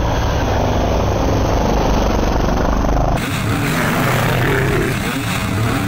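Dirt bike engine noise from the race, with a heavy low rumble; the sound changes abruptly a little past three seconds in.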